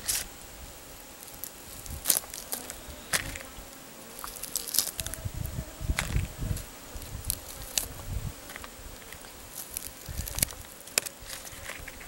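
Roasted small birds being torn apart by hand and chewed: crisp crackles and snaps of charred skin and bone, with soft chewing thumps. A faint insect buzz comes and goes.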